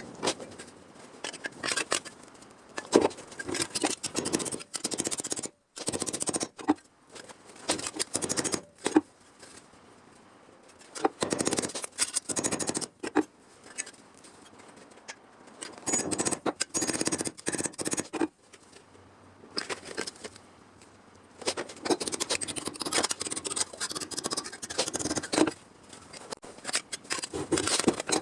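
Hand work on car-body sheet metal: irregular scraping, scratching and snipping in uneven spells, broken by short pauses and abrupt cut-offs.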